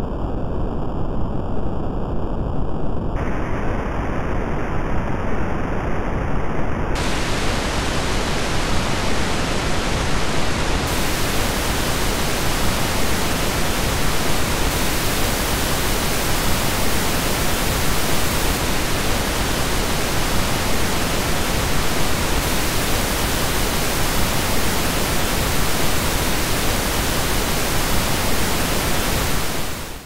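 Synthetic pink noise (1/f noise) generated by the midpoint displacement algorithm: a steady hiss whose top end widens upward in three steps over the first ten seconds or so, from a dull rush to a full-range hiss, as each step of the algorithm adds finer detail. It then holds steady and cuts off suddenly at the end.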